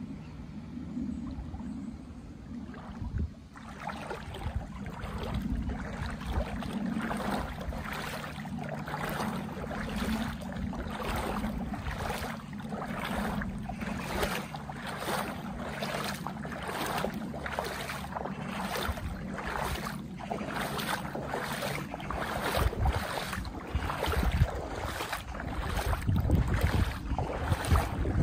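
Footsteps wading through floodwater on a submerged road, each stride a splash, about one and a half a second in a steady rhythm that starts a few seconds in.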